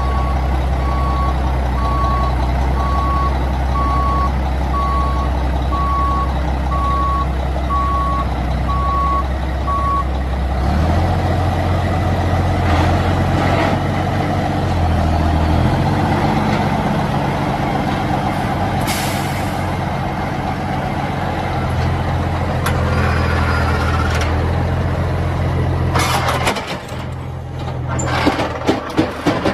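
Diesel engine of a 1999 Mack dump truck running, with a reversing alarm beeping about once a second through the first third. About ten seconds in, the engine speed steps up and stays higher. Near the end, a quick series of clanks and knocks.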